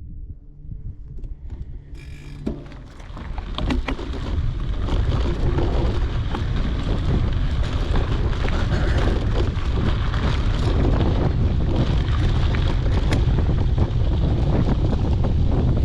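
Wind buffeting the camera microphone, building up two to three seconds in and then staying heavy. Through it comes a scatter of clicks and crunches from mountain bike tyres rolling over the dirt and rock trail, with a low steady hum at the start.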